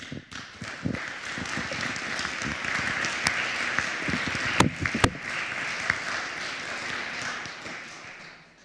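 Audience applauding, dying away near the end. Two sharp clicks stand out from the clapping about halfway through.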